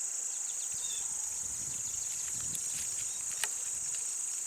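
Steady high-pitched insect chorus, with some light rustling and a single sharp click about three and a half seconds in.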